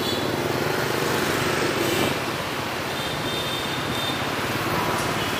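Steady street traffic noise: vehicle engines running and passing, with a faint high tone or two over it.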